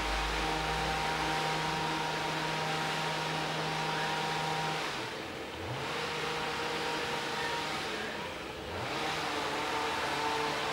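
A steady motor whirring with a low hum. It drops away twice and comes back each time with a short rise in pitch.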